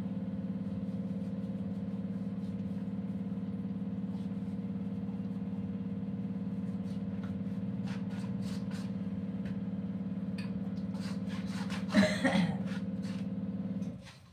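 Household electric flour mill (atta chakki) running with a steady motor hum while grinding chickpeas, with a brief clatter about twelve seconds in; the motor cuts off suddenly near the end.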